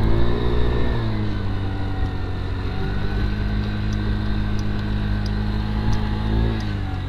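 Scooter engine running under the rider, its pitch dropping about a second in as it slows, holding steady, then dropping again near the end.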